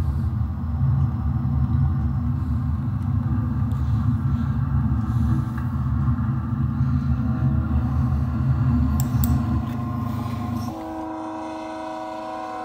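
Diesel locomotive sound: a low, heavy engine rumble, then about two-thirds of the way in the rumble drops away and a multi-note air horn sounds and holds.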